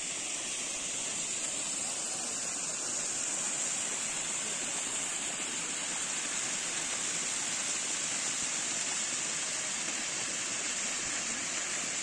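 Small waterfall pouring into a rock pool: steady rushing and splashing water.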